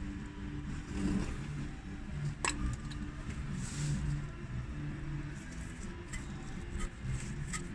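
Fiat Ducato van's engine making a steady low mechanical sound, with scattered light clicks and ticks over it.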